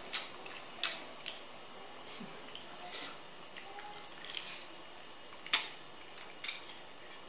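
Cooked crab being cracked and pulled apart by hand and eaten: a string of sharp, irregular cracks and clicks of shell, the loudest about five and a half seconds in.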